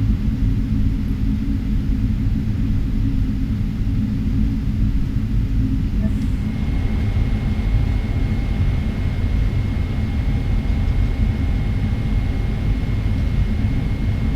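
Cabin noise of a Boeing 777-300ER taxiing to the runway: a steady low rumble of the engines at taxi power and the airframe. About halfway through, a faint steady high whine joins in and holds.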